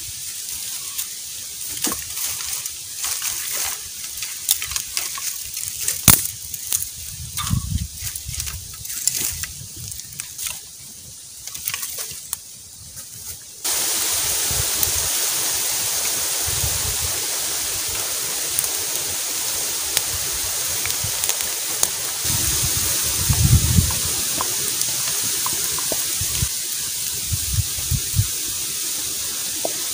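Small campfire of dry bamboo leaves and twigs crackling and popping. About halfway through, a steady hiss sets in abruptly and holds, with a few soft low thumps.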